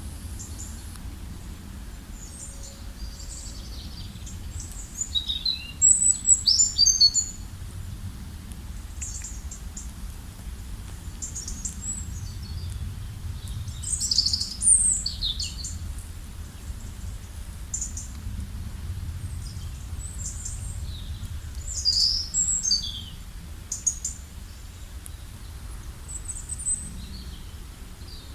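Several songbirds chirping and calling in short, high notes and quick trills, some sweeping down in pitch, with the loudest flurries at about 6, 14 and 22 seconds in. A steady low rumble lies underneath.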